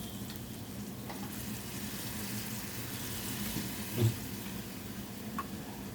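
Garlic, onion and ginger sizzling in a frying pan with soy sauce just added, a steady hiss. A single loud knock about four seconds in.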